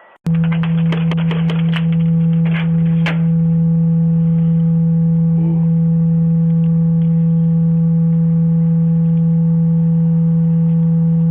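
A loud, steady low hum that switches on abruptly and holds at one pitch, with a quick run of clicks over roughly the first three seconds.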